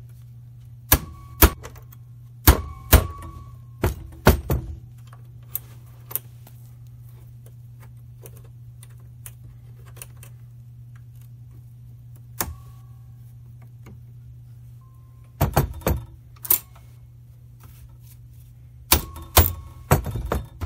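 Sharp metal clicks and clanks of locking pliers (vise grips) being fitted and clamped onto the steel strands of a heavy-duty coil spring, some with a brief ring. They come in clusters over the first few seconds, once near the middle, and again near the end.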